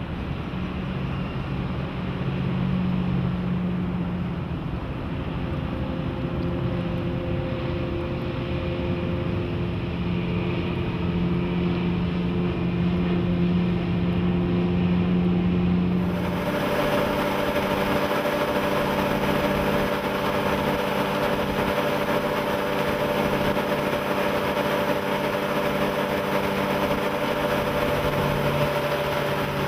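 MerCruiser 7.4-litre V8 inboard engine of a 28-foot cabin cruiser running steadily under way, heard from the shore as the boat passes. About halfway through the sound changes abruptly to on board at speed, with a rush of wind and water over the engine's drone.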